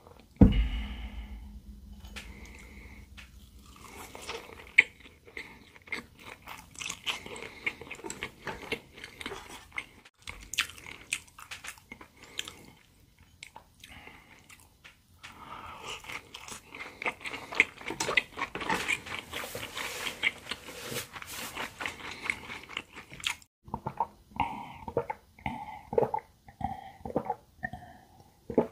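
Close-miked biting and chewing of pan-fried potato and zucchini pancakes, moist and crackly with crisp edges. There is a low thump right at the start. Near the end come a few gulps of a drink.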